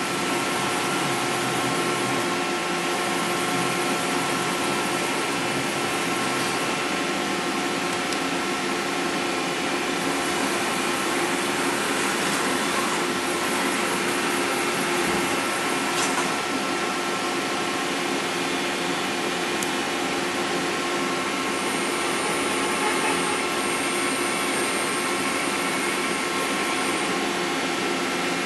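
Mori Seiki NVX5100 vertical machining center's spindle running at a steady speed with no cutting: an even whine of several steady tones over a rush of noise, sounding smooth and healthy. A faint high tone joins for a few seconds near the end.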